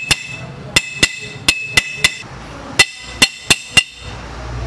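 A hammer taps a steel pipe used as a drift to press a motorcycle steering-head ball race (bearing cup) into place. There are about ten blows in quick groups of one to four, and each leaves a short, ringing metallic tone from the pipe.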